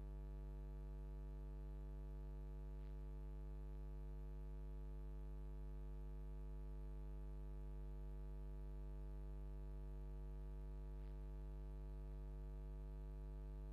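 Steady electrical mains hum at about 50 Hz with its overtones, unchanging throughout, with two faint ticks, one about three seconds in and one near the end.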